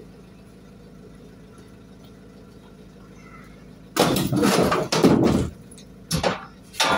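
Scrap metal being loaded into the back of a van: after about four seconds of quiet background, a metal frame clatters and scrapes loudly against the van's floor and door frame, followed by two short clanks.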